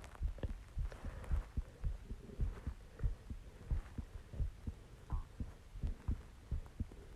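Human heartbeat picked up close against the body: low, dull thuds repeating in an even rhythm of about one and a half beats a second.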